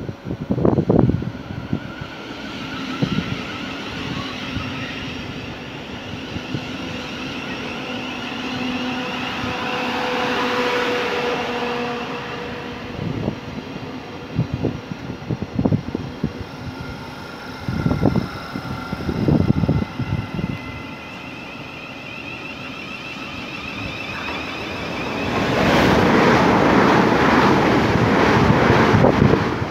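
Thameslink Class 700 (Siemens Desiro City) electric multiple unit running alongside the platform, its traction equipment whining in several shifting tones over wheel and rail noise. The noise grows louder in the last few seconds, with scattered low thumps.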